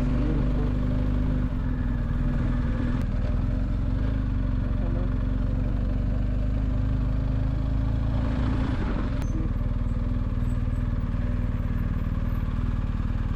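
A motor running steadily, a constant low hum with a few held tones.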